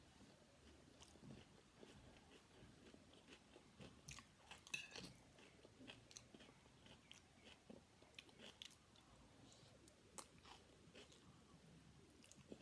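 Faint close-up chewing of a mouthful of vegetable fried rice, soft and moist, with scattered small clicks. A metal spoon scraping and tapping the ceramic plate as it scoops more rice, the loudest cluster about five seconds in.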